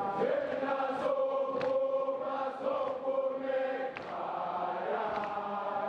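A group of schoolboys singing a gwijo chant together, many male voices holding long notes in harmony, with a new phrase starting about four seconds in.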